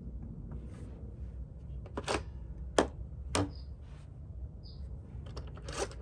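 A few sharp clicks and knocks as a Western Electric Model 500 rotary telephone's handset is lifted off its cradle, the loudest click near the middle.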